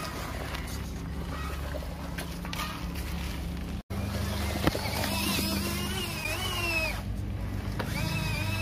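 Small electric drive motor and gears of a homemade RC pickup truck, crawling over dirt. A steady low hum comes first, then after a brief cut-out about four seconds in, a high whine that rises and falls in pitch, with one click shortly after.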